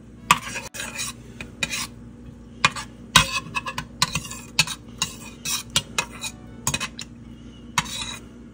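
Metal spoon stirring melting vegetable shortening in a stainless steel saucepan, scraping and clinking irregularly against the bottom and sides of the pan, over a steady low hum.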